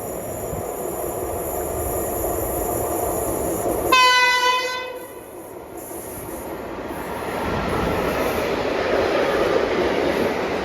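Swedish train sounding one short, single-note horn blast of about a second, about four seconds in, over the steady running rumble of the train, which dips after the blast and then grows louder again.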